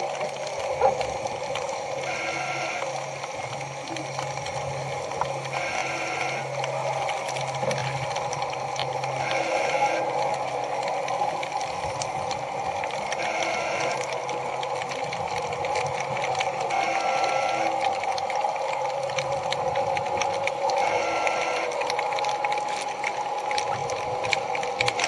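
Electronic music: a short bell-like figure repeats about every four seconds over a steady sustained synth tone.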